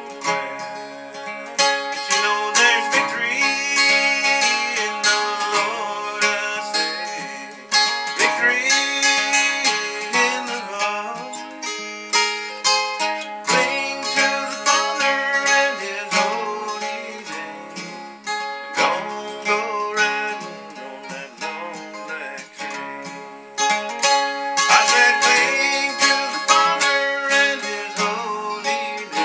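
Acoustic guitar played through a country song, chords strummed and notes picked in a steady run.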